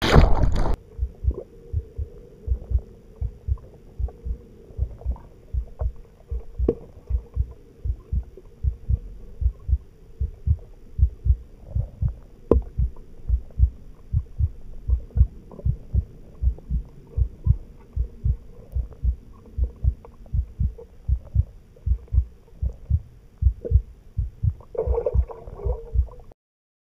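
A burst of splashing water and bubbles at the start, then a steady heartbeat thumping at about two beats a second over a faint hum, with a brief burst of higher noise near the end.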